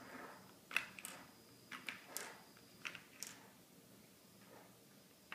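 A handful of faint, sharp clicks of small magnet spheres as rings of them are taken off a stack and set down on a tabletop, quieter near the end.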